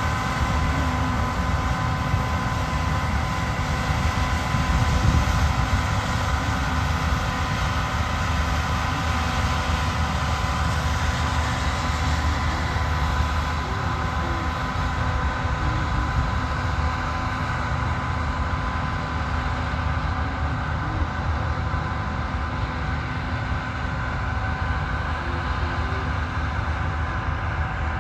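Combine harvester running steadily while harvesting wheat: a constant deep engine rumble with several steady whining tones from its drives above it.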